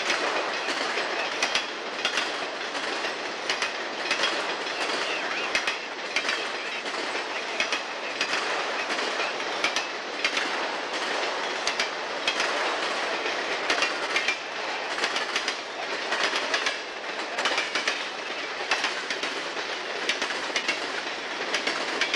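Freight cars rolling past, autoracks and then boxcars, their wheels clicking over rail joints in an uneven rapid clatter over a steady rolling rumble.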